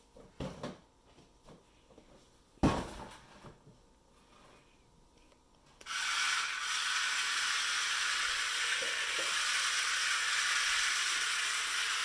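Plastic storage bin knocking on a tile floor, with a sharp knock about two and a half seconds in. From about six seconds in comes a steady hissing scrape of the bin being pushed along the tiles.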